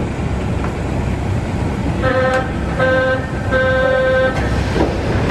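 Door-closing warning signal of a Wagonmash series 81 metro train (81-572.2/573.2 cars): three electronic beeps starting about two seconds in, the first two short and the last one longer. Under it is the steady hum of the standing train.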